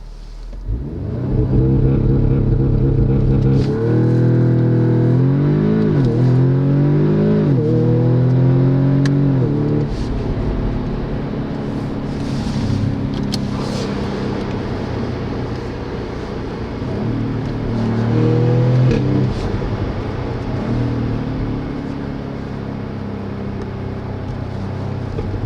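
A 2019 Audi S3's 2.0 TFSI turbocharged four-cylinder engine and exhaust under hard acceleration: the pitch climbs and drops sharply three times in quick succession at the upshifts, then settles to a steadier drone. Near the end comes one more short climb and drop.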